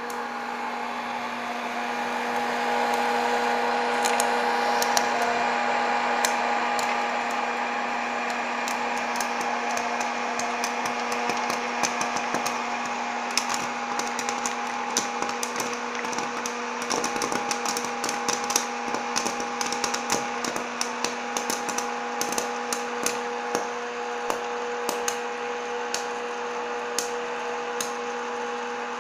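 Electric hot-air popcorn popper: its fan motor and heater run with a steady hum while corn kernels pop inside. The pops start sparsely a few seconds in, become a dense crackle from about ten seconds in, and thin out near the end.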